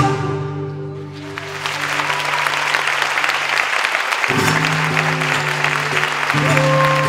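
A loud musical phrase stops right at the start, and audience applause swells from about a second in. Under the applause the band holds low sustained notes that break off briefly midway and return, and a higher held note joins near the end.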